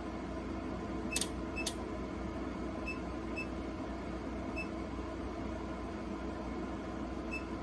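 Keypad buttons on a Silent Knight SK-6808 fire alarm control panel being pressed one at a time. Each press gives a short high beep, about six spread unevenly, and two of them carry a sharper click.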